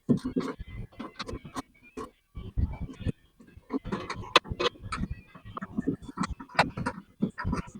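Hand ratchet with a 10 mm socket clicking in short runs as it tightens the fasteners of a new outer door handle, with light metal knocks and clatter inside the car door.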